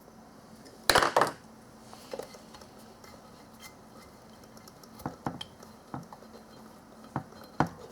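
Light metallic clicks and clinks of hose clamps and hand tools being worked onto a rubber PCV hose. There is a louder clatter about a second in and scattered clicks near the end.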